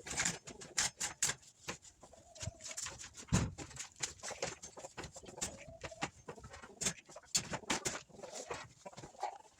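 Chickens making soft, wavering low calls a few times, among many sharp clicks and rustles.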